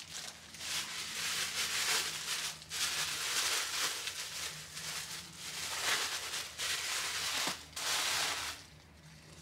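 Tissue paper rustling and crinkling in irregular bursts as a wrapped item is unwrapped by hand; it dies away shortly before the end.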